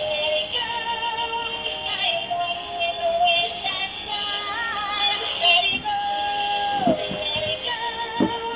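Electronic music with a synthesized singing voice, sustained melodic notes with some pitch glides.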